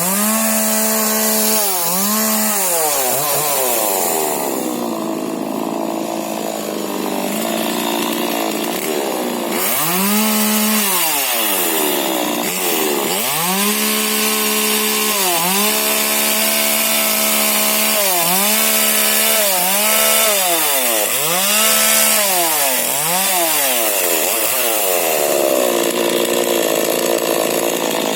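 Husqvarna 125 40cc two-stroke mini chainsaw revved up and let drop back again and again, about a dozen times, while pruning shrub branches. It holds high revs for several seconds early on, cutting through a branch.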